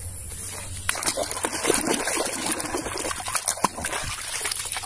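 Water splashing and trickling as a plastic toy truck is dipped and swished in muddy water, with small irregular clicks and splashes that pick up about a second in.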